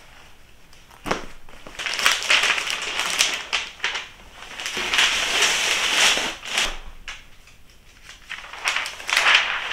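Crinkly packaging being handled and rustled in uneven bursts, starting with a sharp click about a second in, pausing briefly toward the end, then crinkling again.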